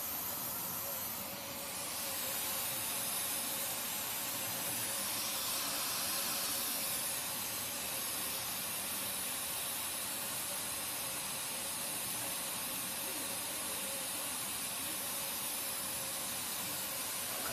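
Steady hiss of compressed air blowing through the hot-air heating tube of a plastic box glue-sealing machine.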